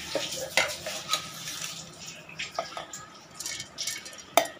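Soaked white sorghum grains poured wet from a steel vessel into a steel mixer-grinder jar: a steady splashing pour with small clicks of grain on metal, and one sharp metal clink near the end.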